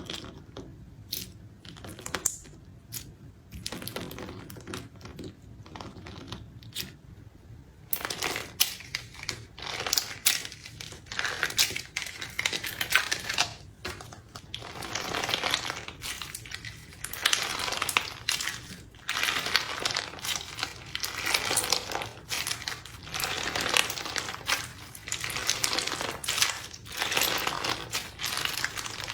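Slime in a cup being squished and poked, making sticky crackling and popping sounds. Scattered single pops at first, then from about eight seconds in a dense, continuous crackle.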